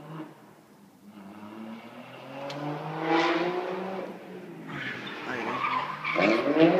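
A car drifting: its engine revving hard in rising surges, with tyre squeal, louder toward the end as it comes closer.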